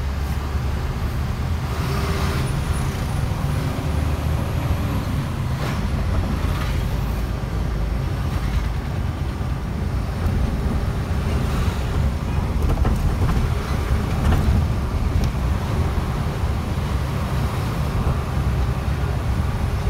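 Diesel truck engine and road noise heard from inside the cab while driving, a steady low rumble.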